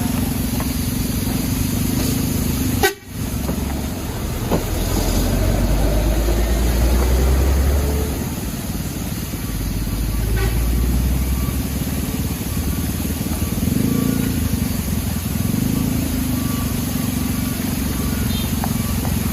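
Vehicle engines running as traffic passes, with car horns honking. The sound cuts abruptly for a moment about three seconds in.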